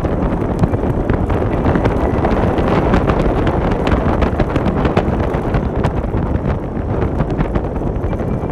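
Heavy wind buffeting the microphone on a moving motorcycle, with the bike's running and road noise underneath and frequent short knocks and rattles throughout.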